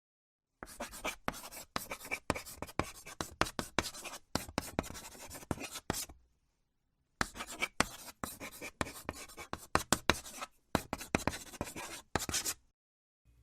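Scratching on a chalkboard: two long runs of rough, irregular scraping strokes, with a short break about halfway.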